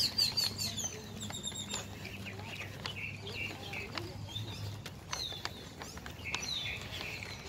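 Birds in the trees chirping, with many short, high, repeated calls and trills.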